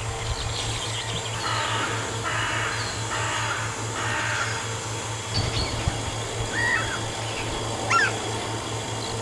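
Wild birds calling: a run of four harsh, rasping calls in the first half, then a few short whistled chirps near the end, over a steady low pulsing hum.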